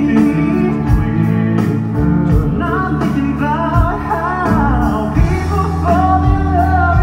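Live band playing rock-and-roll-style music with a man singing, drums keeping a steady beat under a bass line.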